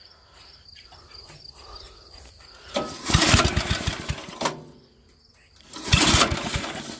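Small tiller engine of a Roper RT13 rear-tine tiller being cranked twice with the throttle partly open. Each attempt lasts about a second and a half, with quick regular knocks as it turns over, and it does not keep running. These are first start attempts after the rusty gas tank and fuel lines were replaced.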